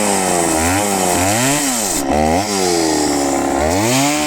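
Two-stroke chainsaw engine revving up and down several times in quick succession, its pitch rising and falling with the throttle, then climbing and holding high near the end.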